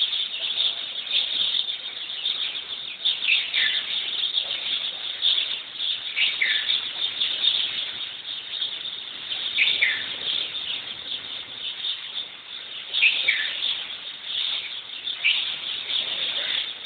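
Many birds chirping together in a dense morning chorus, with louder calls that sweep down in pitch every few seconds.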